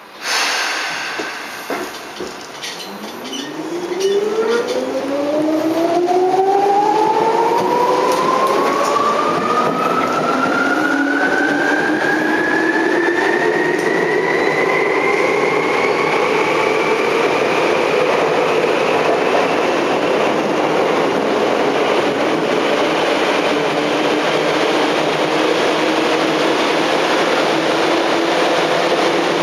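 Tokyu 8590 series motor car heard from inside while running in a subway tunnel. A sudden loud noise at the start fades over about two seconds. Then the traction motors and gears give several whines that rise as the train accelerates, level off about 16 seconds in, and go on steadily with the running rumble at speed.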